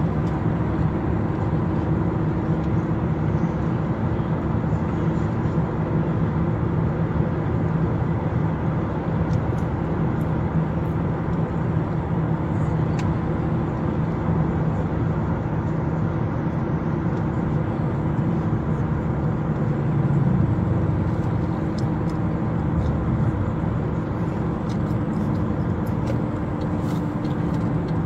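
Car engine and road noise heard from inside the cabin while driving, a steady low hum over an even rush, with a small swell about twenty seconds in.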